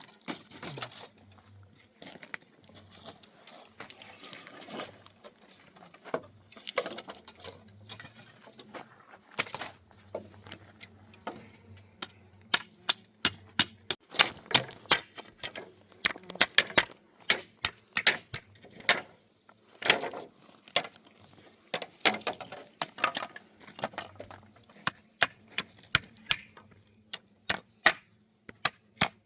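Hammer knocking nails into wooden timber in repeated sharp strikes. They are sparse at first, then come in quick runs of several a second from about halfway.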